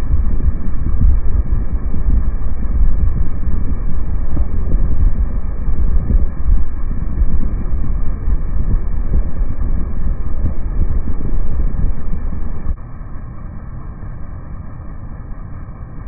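Air-conditioner condenser fan running, its upward air blast buffeting the microphone with loud, low wind noise. The noise drops sharply about 13 seconds in.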